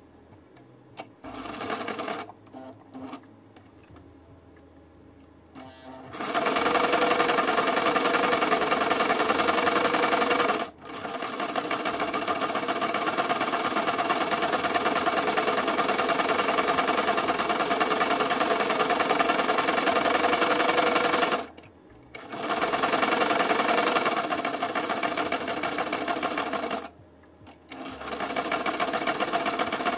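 Electric sewing machine stitching a paper journal page, running in bursts: a few short starts in the first seconds, then long runs of steady stitching with brief stops between them.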